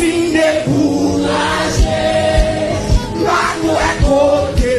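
Music with singing over a steady drum beat, roughly a beat every half second or so.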